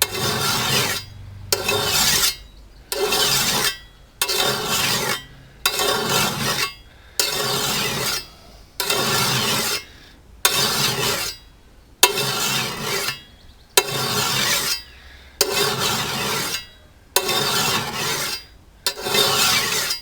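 Single-cut flat file rasping along the steel blade of a D-ring brush cutter, putting a new edge on it: about thirteen even strokes, one every second and a half, each a rasp about a second long.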